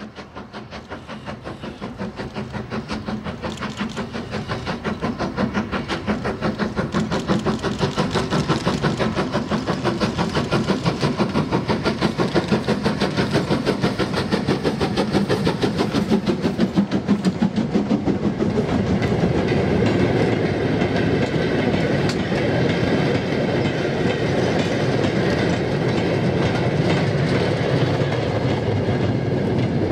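LMS Stanier Class 8F 2-8-0 steam locomotive No. 48624, a two-cylinder engine, working hard with a freight train: a quick, even beat of exhaust chuffs that grows louder as it approaches. About two-thirds of the way through, the beat gives way to the steadier clickety-clack of the freight wagons rolling past over the rail joints.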